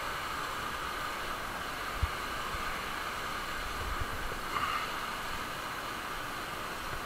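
Steady rushing of a river's whitewater below, with a few soft low thumps as the climber moves hands and shoes over the rock.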